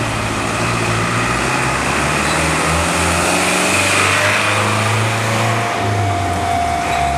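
Road traffic: cars driving past, engines and tyre noise, with one vehicle passing close about four seconds in. A steady high tone starts near the end.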